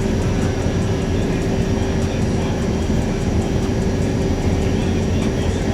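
New York City subway train running, heard from inside the car: a loud, steady rumble with a constant hum through it.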